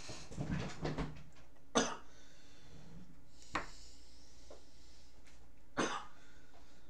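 A person getting up out of a chair and moving close past the microphone: rustling, then three short, sharp sounds about two seconds apart.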